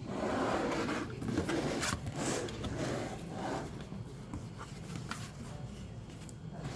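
Keyboard box and its packaging being handled and opened: cardboard rubbing and scraping, loudest in the first few seconds, with a few light knocks.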